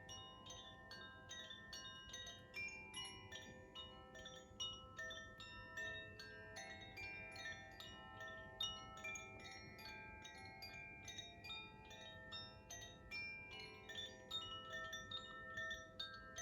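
Koshi chime played by hand, its clapper striking the tuned rods inside the tube in a quick, irregular run of strikes, several a second, each note ringing on into the next.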